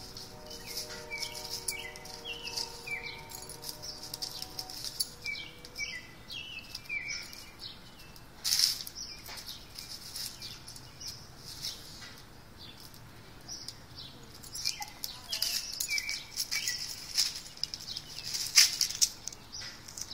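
Dry fallen leaves rustling in irregular bursts as a small dog noses and digs through a leaf pile, loudest about eight seconds in and again near the end. Short high chirps repeat throughout, and a steady hum fades out about five seconds in.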